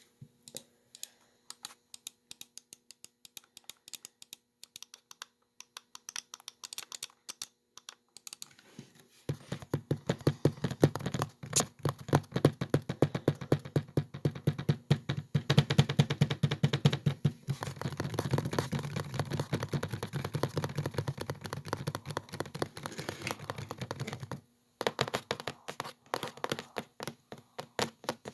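Typing on a laptop keyboard: scattered single clicks for the first eight seconds or so, then fast continuous typing from about nine seconds in until around twenty-four seconds, then scattered clicks again.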